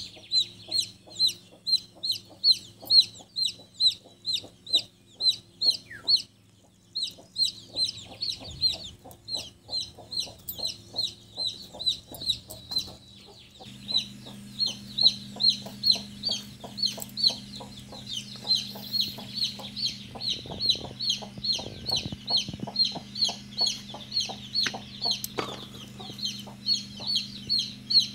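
Chickens calling in a long, even run of short high peeps, about three a second, with low clucks in step with them.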